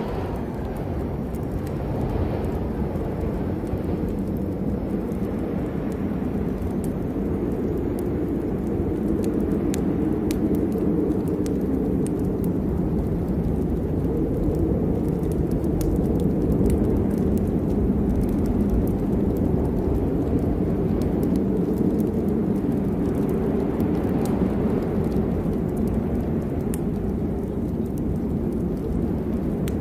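Rain falling steadily, with a constant low rumble beneath it and scattered sharp ticks of individual drops.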